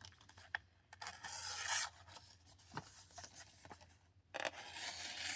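Freshly sharpened OTF knife blade slicing through a sheet of paper in two long hissing strokes, one about a second in and one starting near the end, with small paper rustles and clicks between; the edge cuts cleanly from base to tip.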